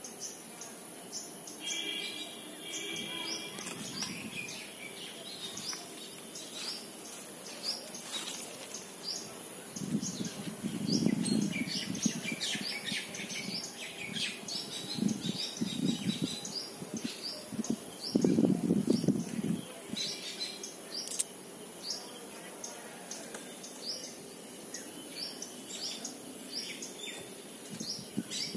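Small birds chirping over and over in short, high notes, with several louder bursts of rustling and scraping in the branches as kittens clamber about the tree, the loudest in the middle.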